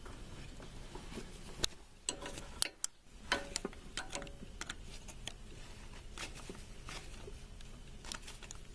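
Irregular metallic clicks and clinks of hand tools and loose exhaust manifold bolts being worked out, a dozen or so sharp ticks spread unevenly, a few with a brief metallic ring.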